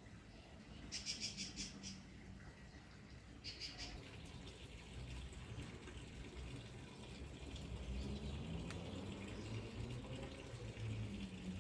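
Birds calling at dawn: a rapid string of high notes about a second in and a shorter one a couple of seconds later, over a low steady background rumble that grows louder from about five seconds in.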